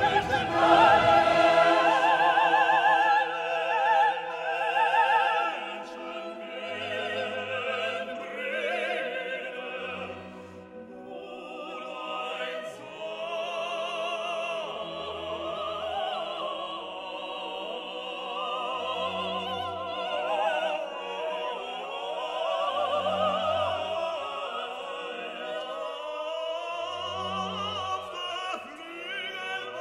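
Orchestral classical music with operatic singing, voices held with wide vibrato over sustained strings; the first few seconds are louder than the rest.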